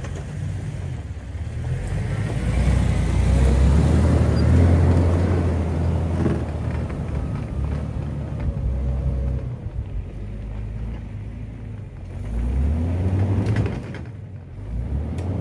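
Jeep's engine labouring as it crawls up a loose dirt hump on open differentials with no lockers, struggling for traction. The revs swell a few seconds in and again near the end.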